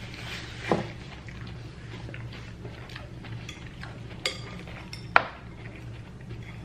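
Cutlery clinking against a plate or bowl while eating salad: a few sharp clinks, the loudest about five seconds in, over a low steady hum.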